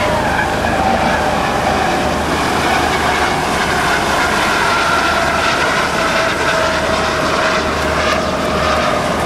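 US Coast Guard HH-65C Dolphin helicopter flying overhead, its twin turboshaft engines and rotors making a loud, steady noise with a high whine that drifts slightly in pitch.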